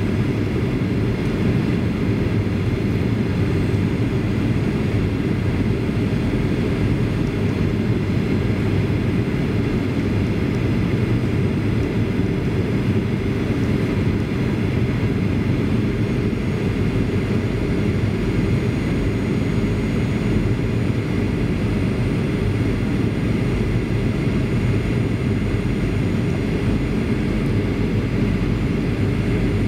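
Steady cabin noise inside a Boeing 737-800 on final approach: the rush of airflow and the hum of its CFM56 engines, with faint steady high whines above.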